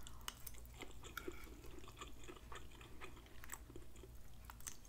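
Faint close-up chewing of soft shredded fried cabbage: wet mouth sounds with scattered small clicks.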